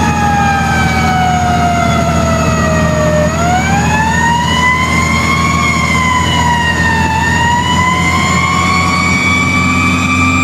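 Fire truck siren heard from inside the cab. Its pitch slides slowly down for about three seconds, then winds back up, dips briefly and rises again. Under it runs the steady drone of the truck's engine.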